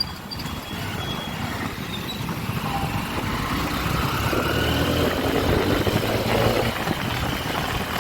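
Honda SP 125's single-cylinder engine running on the move, with road and wind noise; it grows louder from about the middle.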